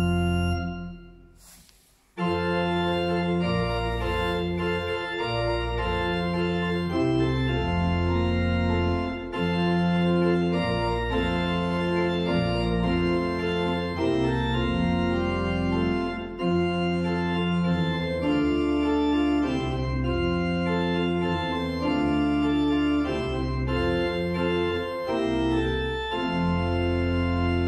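Church pipe organ playing. A held chord breaks off just after the start and dies away in the church's reverberation. About two seconds in, the organ starts again with full, sustained chords and a moving melody.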